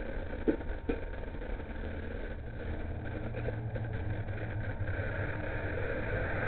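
Steady low rumble of background noise picked up by a doorbell camera's microphone, thin and cut off above the mid-range. Two faint knocks come about half a second and one second in.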